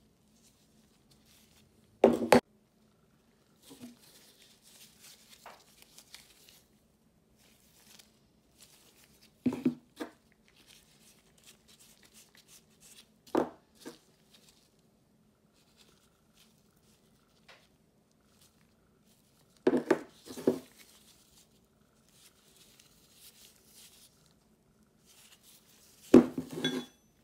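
Steel pipe wrench parts handled and set down on a wooden tabletop: about six sharp metal clanks and knocks spread through, with small scraping and rustling of the parts and gloves between.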